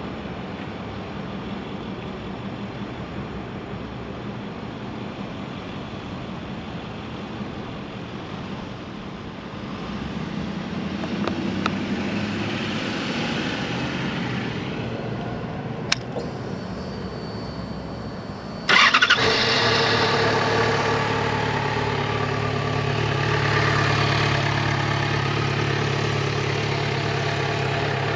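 Faint steady outdoor background noise, then a sharp click. About two-thirds of the way in, the 2012 Yamaha FZ6R's 600cc liquid-cooled inline four-cylinder engine starts abruptly and settles into a steady idle.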